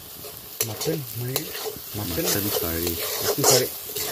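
Metal spatula stirring and scraping onions, green chillies and freshly added spice powder around a hot wok, the oil sizzling as the masala fries, with a few sharp scrapes of the spatula against the pan.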